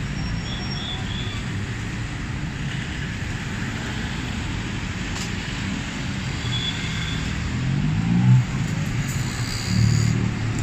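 Busy city street traffic: a steady rumble of cars and motor scooters passing close by. An engine revs up about eight seconds in and again near the end.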